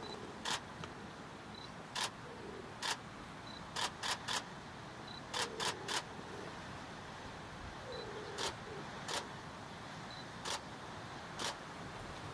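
Camera shutter firing: about a dozen sharp clicks, some single and some in quick bursts of two or three, over a faint steady hiss.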